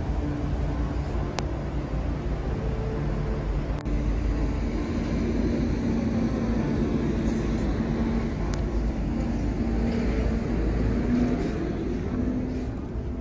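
Bus engine running: a steady low rumble with a drone whose pitch shifts a little past the middle, and a couple of faint clicks.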